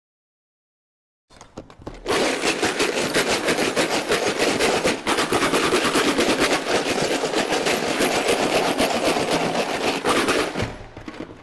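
Loose metal screws, nuts, bolts and washers rattling hard in a clear plastic tub with an iPhone 8 inside, shaken by hand in a scratch test. A dense, fast clatter starts about two seconds in, keeps up for about eight seconds and fades near the end.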